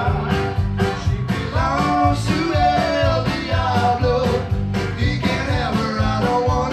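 Tex-Mex band playing live: button accordion and electric guitars over bass and drums, with a steady beat.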